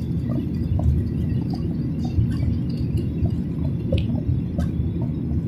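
Steady low rumble of a jet airliner's engines and rushing air, heard inside the passenger cabin during the climb after takeoff, with faint scattered light clicks.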